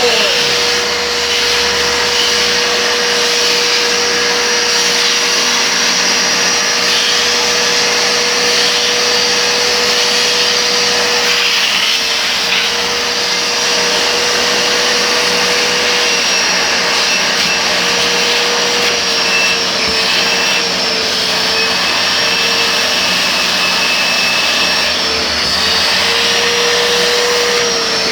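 Sofa-washing (wet extraction) vacuum cleaner running steadily, a loud motor whine over rushing air. Its pitch sags slightly a few times in the second half.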